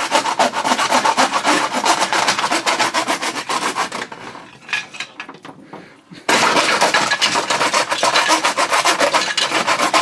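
Hand saw sawing back and forth through the plastic housing of a doorbell chime in rapid rasping strokes, making slow progress. The sawing eases off about four seconds in and starts again sharply about two seconds later.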